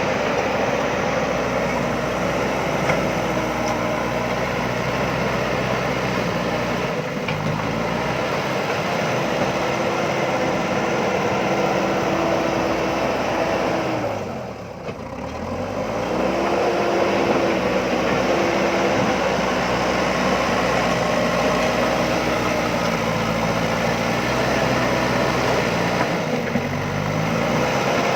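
JCB backhoe loader's diesel engine running, its revs stepping up and down as the hydraulics work, with a brief dip in revs about halfway through before it picks up again.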